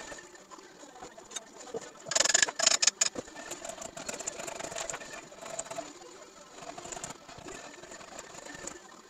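Hand blade scraping and tearing bark off the live edge of a maple slab: irregular scratchy strokes with small crackles as bark chips break away, with one loud, dense stretch of scraping about two seconds in lasting about a second.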